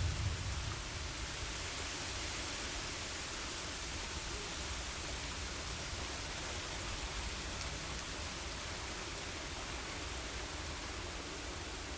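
Steady rain hissing, with the low rumble of a thunderclap dying away in the first moment.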